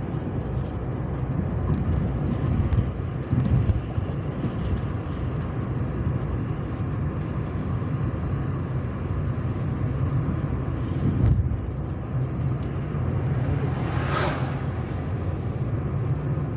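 Car driving on a highway, heard from inside the cabin: a steady low rumble of tyres and engine, with a single thump about eleven seconds in and a brief whoosh a few seconds later.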